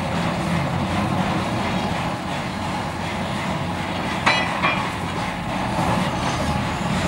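Steam crane running steadily with a hiss of steam. About four seconds in comes a sharp ringing clank of a steel track bar on rail, and a lighter one half a second later.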